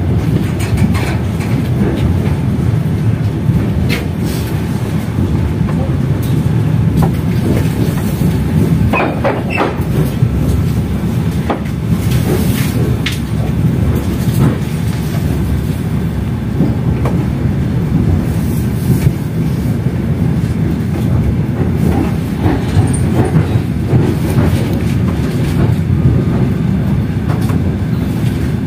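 Passenger train carriage running on the rails: a steady low rumble with scattered knocks and clicks from the wheels over the track.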